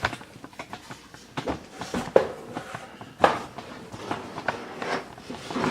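Irregular knocks and clicks, like footsteps and handling, with a couple of sharper knocks about two and three seconds in.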